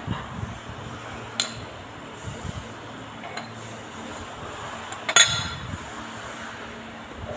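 Metal automatic-transmission parts clinking against each other and the aluminium case as they are handled: two sharp ringing clinks, the louder about five seconds in, with a few lighter taps between.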